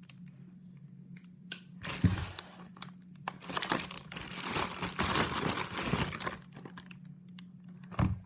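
Packaging being cut and torn open by hand: crinkling and tearing, busiest in the middle, with a few sharp clicks and knocks.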